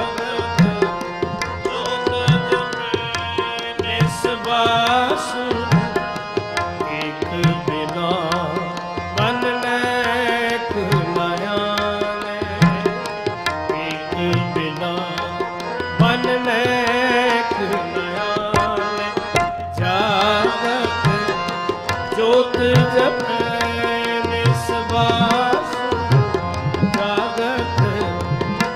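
Harmoniums and tabla playing a Sikh kirtan melody, the tabla keeping a steady beat of low strokes under the reedy held notes.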